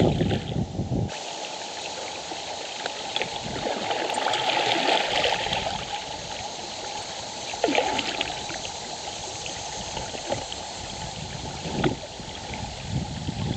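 River water running and trickling over rocks around a kayak, swelling for a second or two a little before the middle, with a few sharp knocks.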